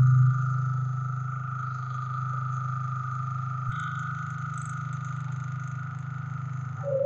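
Maxi portable generator's engine running at a steady speed, with a steady low hum and a thin high whine over it, without surging or hunting. This is the sign that the client's carburetor, fitted for the test, is working properly. The high whine stops near the end.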